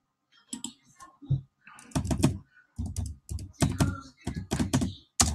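Typing on a computer keyboard: a run of irregular keystrokes, with a single sharper, louder click near the end.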